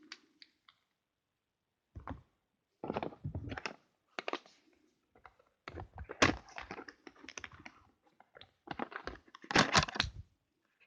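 Clicks, taps and knocks of cardboard and plastic makeup packaging being handled and set down, in several uneven spells of clatter, loudest about nine to ten seconds in.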